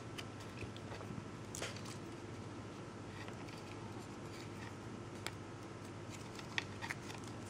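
Steady faint hum with a few scattered small sharp clicks and taps of hand work on small parts, the loudest about two-thirds of the way through.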